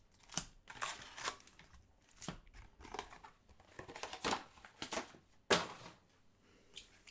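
Trading cards and their plastic packaging being handled: scattered soft rustles and light clicks, a few at a time, the sharpest a little over five seconds in.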